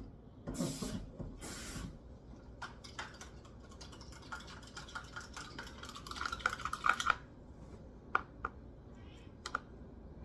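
Water being poured into dog food bowls over kibble, with clinks and clatter of the bowls. The pouring is heaviest about four to seven seconds in, followed by a few sharp clicks.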